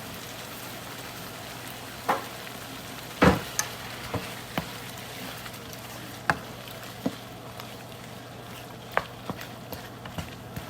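Pork frying in a pan with a steady sizzle, while a utensil knocks and scrapes against the pan about a dozen times at irregular intervals as the meat is stirred. The loudest knock comes a little over three seconds in.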